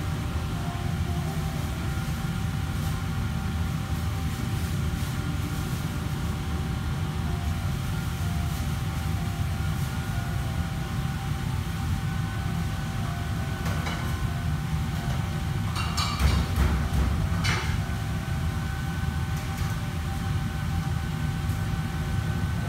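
Steady low drone of commercial kitchen ventilation and equipment with a faint steady whine above it; a few clinks and a brief clatter of cookware about two-thirds of the way in.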